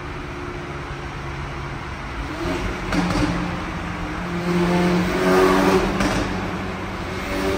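Exhaust of an Audi S3's turbocharged 2.0-litre four-cylinder, running a DBV2 4-inch downpipe with the stock muffler, heard from the cabin in a road tunnel as the car accelerates. The engine note swells a couple of seconds in and is loudest around five to six seconds in, then eases off.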